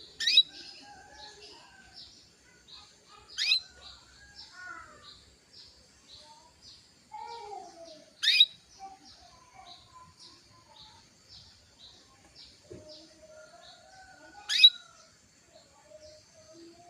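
Female canary calling: four loud, sharp chirps, each a quick downward sweep in pitch, spaced a few seconds apart, over a fainter, rapid, evenly repeated chirping. These are the calls of a female in breeding condition, used to stir a male canary into singing.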